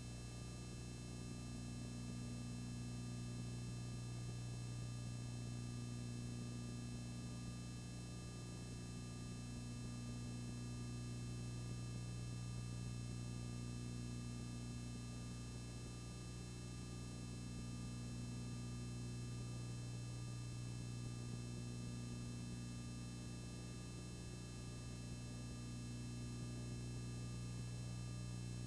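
Steady low electrical hum with faint hiss, unchanging throughout, with no other sound.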